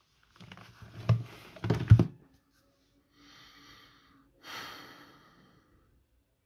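A few knocks and rustling from a person moving, the loudest close to two seconds in, then two breaths through the nose, the second louder, over a faint steady hum.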